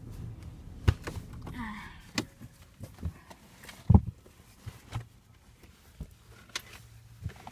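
Scattered clicks and knocks from a hand-held phone being moved about inside a car, with one louder knock about four seconds in. A low hum underneath fades after about two seconds.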